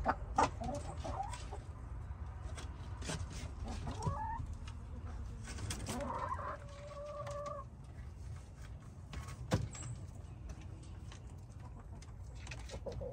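Hens clucking in short calls, with one longer drawn-out call about six seconds in. A couple of sharp clicks and a steady low rumble run underneath.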